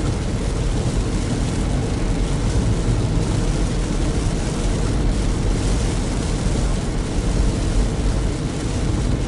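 Steady road noise inside a moving car: engine and tyres on rain-wet pavement, an even hiss over a low rumble.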